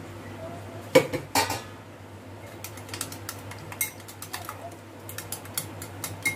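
Metal wire whisk beating egg batter in a bowl: two loud knocks about a second in, then the wires click and tap irregularly against the bowl.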